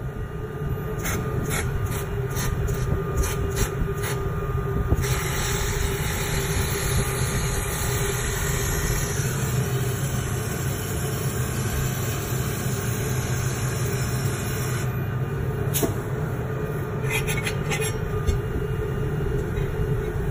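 Automatic laser welding station at work: a steady machine hum with a hiss, and scattered sharp ticks in the first few seconds and again about three quarters of the way through. The hiss turns brighter from about five seconds in until about fifteen seconds.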